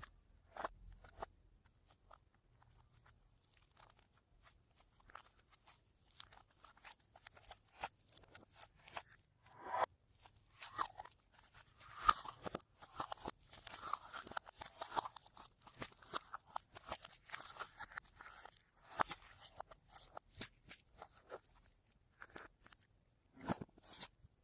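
Fluffy slime being squeezed and kneaded by hand, giving a long run of small crisp crackles and crunches that thickens after a few seconds and thins out near the end.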